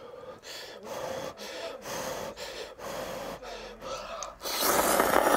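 A person blowing on hot ramen noodles held up on chopsticks in a run of short breaths, about two a second, then slurping the noodles in loudly about four and a half seconds in.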